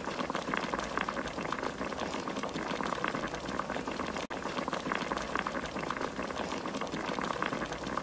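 A whole duck simmering in its juices in a cast iron Dutch oven, with steady bubbling and sizzling and a brief break about four seconds in.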